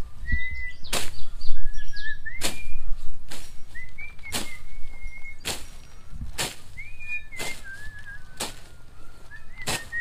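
A sharpened blade chopping and swishing through brush in steady strokes, about one a second, while a man whistles a tune.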